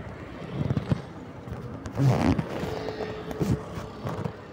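Road and traffic noise on a Bajaj Platino 110 motorcycle ride, broken by several short, irregular low thumps, the loudest about two seconds in.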